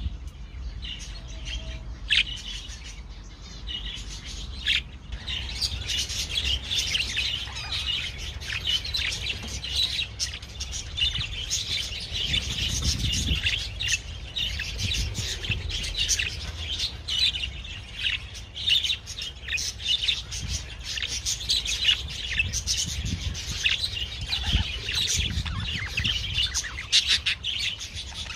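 Budgerigar warbling and chattering: a dense, continuous run of quick chirps and twitters that sets in about five seconds in, after a few sparse single calls.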